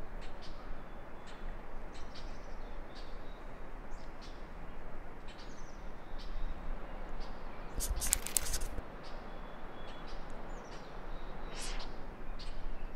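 Small birds chirping in short, scattered calls over steady outdoor background noise, with a brief burst of close clattering noise about eight seconds in.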